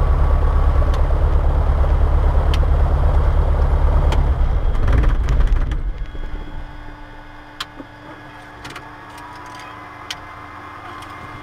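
Diamond DA20's four-cylinder piston engine idling with a steady throb, then running down and stopping about six seconds in as the mixture is pulled to idle cut-off. Afterwards a faint hum remains, with a couple of sharp switch clicks.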